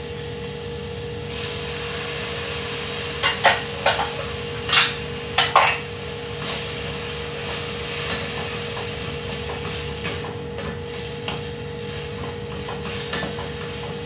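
Wooden spatula stirring and knocking in a steel cooking pot: a run of about seven sharp knocks between three and six seconds in, then quieter stirring, over a steady hum.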